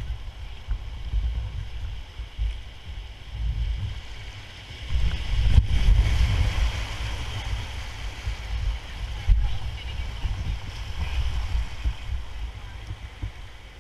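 Whitewater rushing around a paddle raft as it runs a rapid, with wind buffeting the action camera's microphone as a low rumble. The rush of water is loudest from about five seconds in and eases near the end as the raft reaches calmer water.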